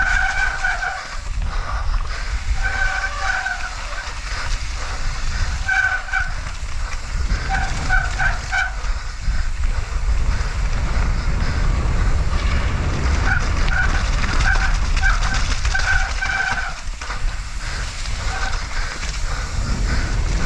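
Mountain bike disc brakes squealing in repeated short bursts, several per stretch with pauses between, over a steady low rumble from riding a wet, rough trail. The rider says the brakes are binding.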